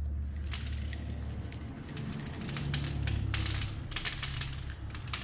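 Coarse rock salt going into a glass quart jar packed with shrimp: a dense run of gritty clicks and crackles as the grains hit glass and settle, over a steady low hum.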